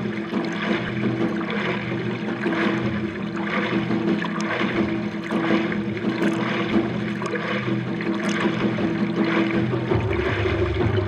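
Arm strokes of a prone paddler splashing water at a sprint pace, about one splash a second, with water rushing past a paddleboard close to the microphone. Low drum music comes in near the end.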